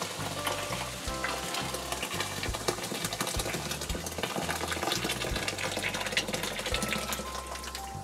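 Hot water poured from an electric kettle into a dishwasher's sump onto baking soda and vinegar, splashing and fizzing with a dense crackle, a home treatment for a clogged, non-draining drain. Soft background music plays underneath.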